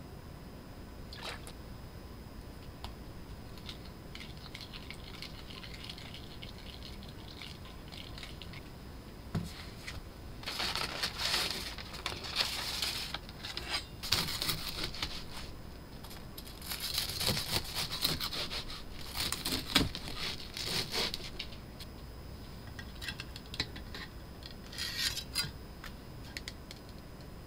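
Knife cutting through a crispy deep-fried breaded cheese pork cutlet (cheese donkatsu). Bouts of crunching and crackling start about ten seconds in, with lighter crunches near the end.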